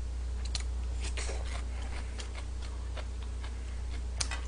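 Close-miked eating: chewing of yaki udon, with scattered small wet mouth clicks and one sharper click near the end, over a steady low electrical hum.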